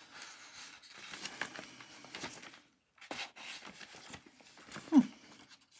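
Sheets of patterned craft paper rustling and crackling as they are leafed through and handled, with a brief, loud falling tone about five seconds in.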